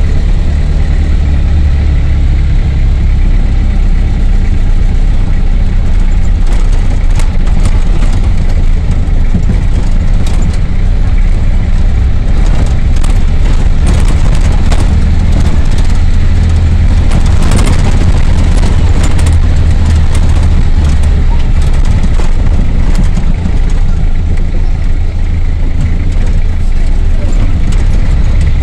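Vehicle engine running with a loud, steady low drone, heard from inside the cab while driving on a dirt road, with knocks and rattles through the middle stretch.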